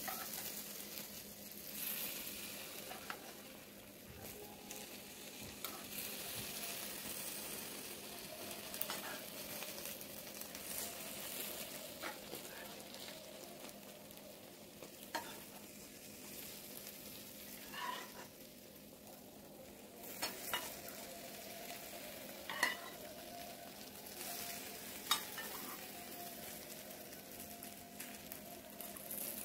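Metal spoon scooping and spreading chunky tomato sauce over roasted eggplant and peppers in a glass baking dish: a wet, crackling hiss with a few sharp clicks of the spoon.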